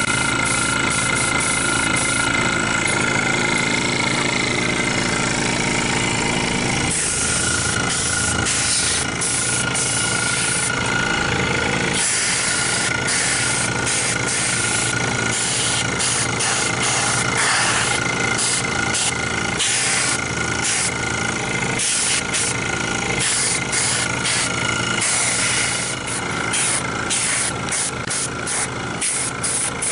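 Air compressor running steadily, with an airbrush hissing in short, irregular bursts as it sprays a thin coat of Cerakote.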